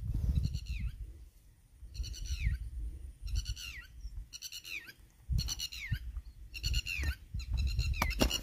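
Birds calling: short, high, nasal calls that fall in pitch, repeated in loose clusters, over a low rumble of wind on the microphone.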